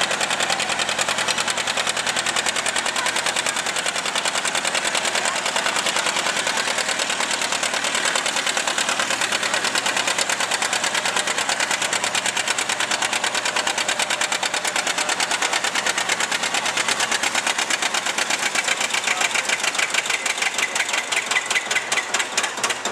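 John Deere two-cylinder tractor engine running hard under load, pulling a weight-transfer sled, with a fast, even exhaust beat. From about 19 s the beat turns coarser and pulses in loudness as the front end lifts.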